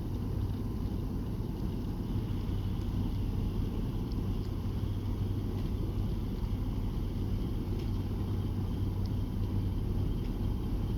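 Boat engine running with a steady low drone and hum.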